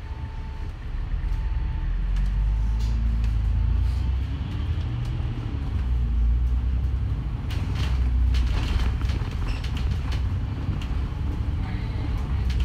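Bus engine pulling away, growing louder about a second in and rising in pitch over the next few seconds. A repeated short beep sounds in the first two seconds, and the bus body rattles and creaks around the eight-second mark.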